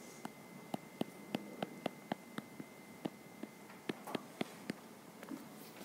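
Stylus tapping and clicking on a tablet screen during handwriting: a run of small sharp ticks, about three or four a second, stopping about five seconds in. A faint steady high-pitched whine sits underneath.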